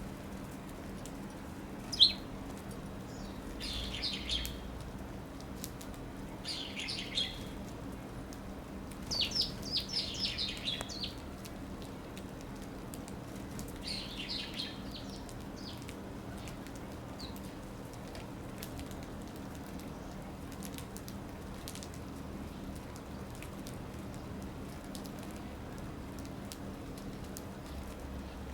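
Eurasian tree sparrows chirping at a feeder. Two sharp single calls come near the start, then short bursts of rapid chirps, the busiest about ten seconds in; it is mostly quiet over the last dozen seconds.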